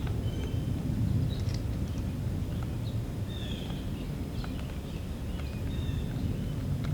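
Outdoor ambience: small birds chirping and whistling now and then over a steady low rumble.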